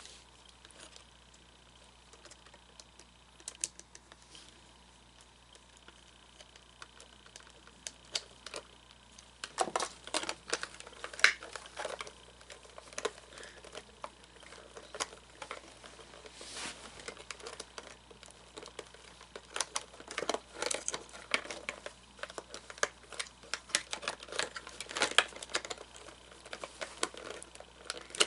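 Hands working on a plastic animatronic figure during a hip-gear replacement: irregular small clicks, taps and rustling of parts and screws being handled. It is sparse at first and gets busier about a third of the way in.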